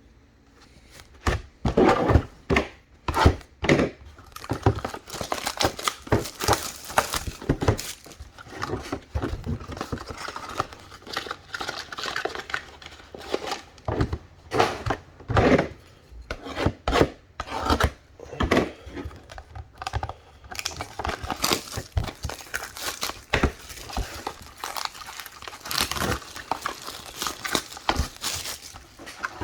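Foil card-pack wrappers being torn open and crinkled while trading cards are handled, with repeated sharp clicks as cards go into snap-shut plastic card holders.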